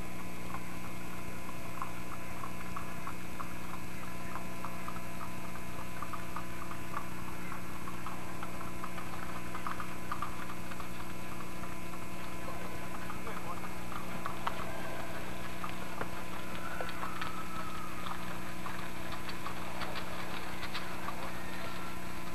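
Steady electrical mains hum over the whole recording, with faint hoofbeats of a horse trotting on a road pulling a two-wheeled cart, getting clearer near the end as it comes closer.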